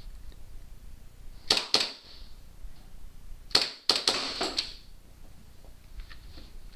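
WE 1911 gas blowback airsoft pistol firing: two sharp shots, then a quicker string of several more about two seconds later, each a hard clack with a brief hiss of gas.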